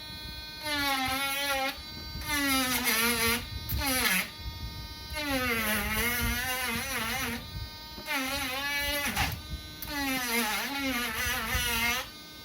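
Dremel rotary tool with a sandpaper tip sanding down a ThinkPad palm rest. The motor's whine sags in pitch as the tip bites into the material and climbs back as it eases off, with several short breaks.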